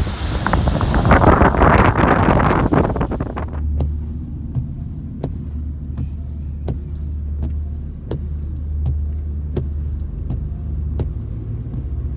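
Wind buffeting the microphone for the first three seconds or so, then the steady low hum of a car cabin on the move, with light ticks about one and a half times a second.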